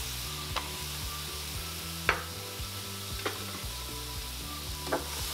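Diced carrots sizzling in a few tablespoons of broth in a hot pan, a steady sizzle with four short sharp ticks spread through it.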